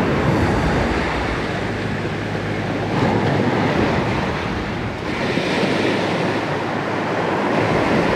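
Ocean surf washing and breaking over shoreline rocks, a steady rushing wash that surges louder a few times as waves come in.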